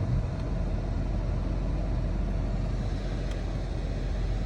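Car engine idling steadily: a low, even rumble with no distinct clicks.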